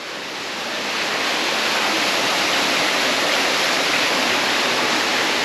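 Artificial waterfall in a pool area, a steady rush of falling water splashing into the pool that grows louder over the first second or so, then holds.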